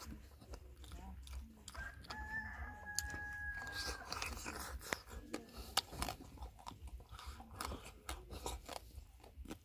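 Close chewing and crunching of food, with many short sharp clicks of biting. About two seconds in, a steady high tone holds for about two seconds.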